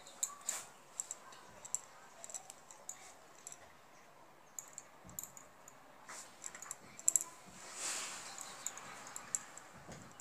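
Faint, irregular small clicks and rustles of hands crocheting wool with a metal crochet hook, working slip stitches and chain loops, with a brief soft rustle about eight seconds in.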